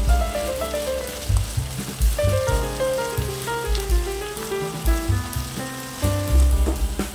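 Background music with a steady bass beat and a stepping melody, over the sizzle of chopped onions frying in oil as they are stirred.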